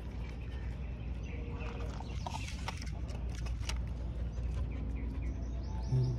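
Dog crunching dry kibble from a bowl, heard as a run of crisp clicks over a steady low rumble. A short low tone comes just before the end.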